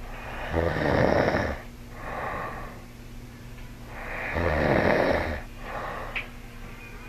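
A sleeping man snoring heavily: two loud snores about three and a half seconds apart, each followed by a softer breath.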